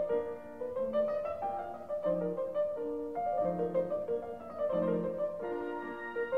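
Background piano music, a gentle melody over a steady pattern of low notes.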